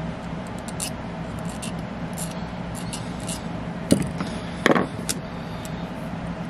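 Light clicks and taps over a steady low hum, with a sharp knock about four seconds in and a short rattle just after it.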